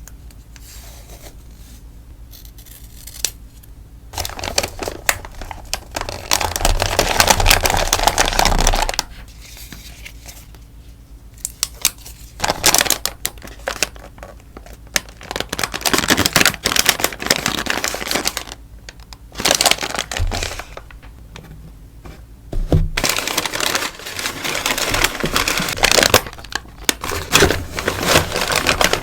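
Sticker packaging rustling and crinkling as stickers are packed by hand, in several bouts separated by short quiet pauses.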